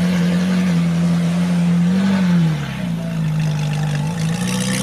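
Supercar engine running at a held rev, its pitch dropping a little just after two seconds in and climbing back about four seconds in.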